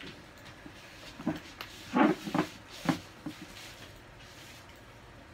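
A quick run of dull knocks and clacks, about half a dozen, loudest about two seconds in.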